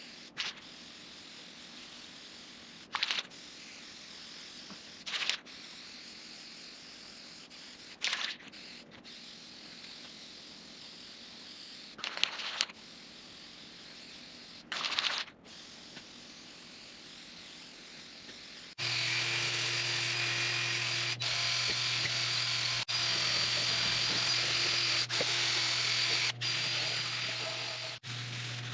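Short hissing bursts of spray paint, about six of them a few seconds apart, as the planer's castings are painted. About two-thirds of the way in, a louder, steady electric hum with a few steady whining tones starts suddenly and keeps going.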